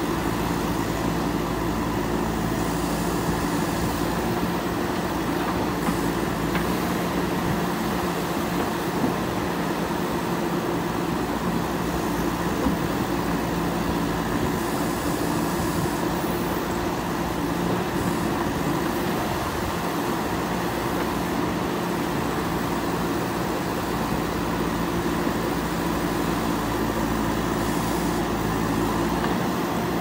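Diesel engine of a JCB 3DX backhoe loader running steadily under load while the backhoe arm digs soil, with a few faint knocks from the bucket working the dirt.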